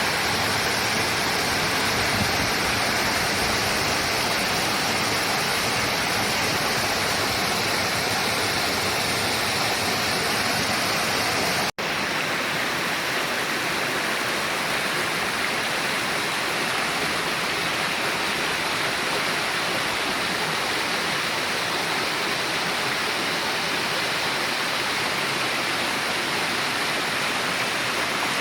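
Mountain valley stream water rushing steadily. It cuts out for an instant about twelve seconds in, then goes on a little thinner.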